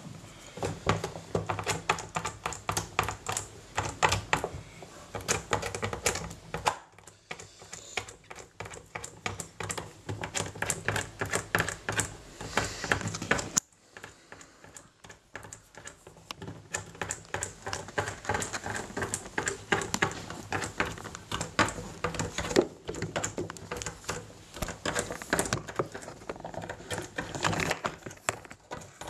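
Rapid, irregular clicking and tapping of small hard parts as fingers and a pointed tool work the knobs and fittings of a Tascam M-06ST mixing console, with a brief break about halfway through.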